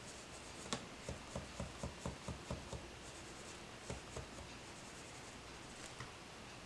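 Colored pencil scratching on paper in short shading strokes: a quick run of about four strokes a second in the first three seconds, then a few scattered strokes.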